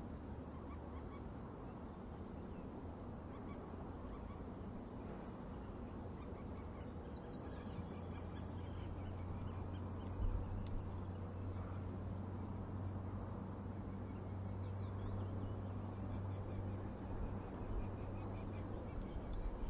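Faint bird calls over a steady low hum, the calls starting a few seconds in.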